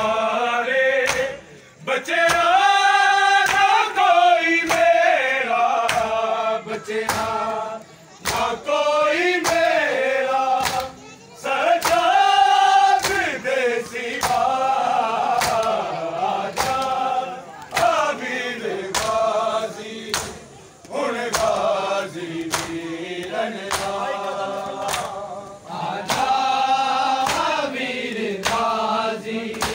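A crowd of men chanting a noha, a Shia mourning lament, in unison, in long phrases with short breaks. Under it, matam: many palms striking bare chests together in a steady beat, a little over one strike a second.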